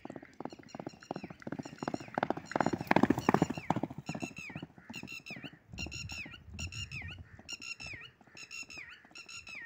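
Hoofbeats of a galloping mare on a dry dirt track, growing louder as she passes close about three seconds in, then fading into the distance. From about four seconds in, a bird calls over and over, a short falling call about every two-thirds of a second.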